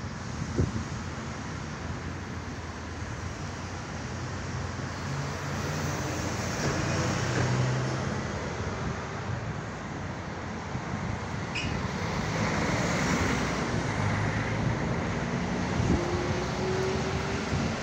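Street traffic: cars and a city bus driving past, a steady wash of engine hum and tyre noise that swells as vehicles go by, loudest as the bus passes close about seven to eight seconds in.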